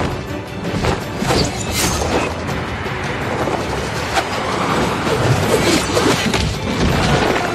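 Dramatic background music over battle sound effects, with several sharp crashes, booms and whooshes.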